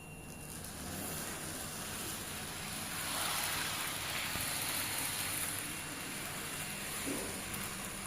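Model train running along the track, a steady running noise that grows a little louder in the middle and then eases off.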